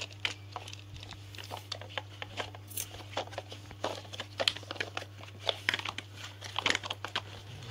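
Hard plastic toy trucks being handled and pushed about, giving irregular light clicks and knocks of plastic on plastic, over a steady low hum.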